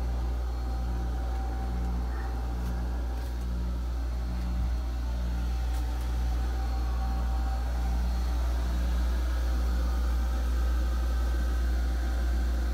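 Steady low drone of machinery running in a boat's engine room, with a regular pulsing in the hum about once a second.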